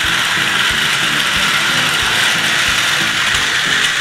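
Battery-powered plastic toy train running on a plastic track: a steady whirr of its small motor and gears, with a low thump repeating about every two-thirds of a second.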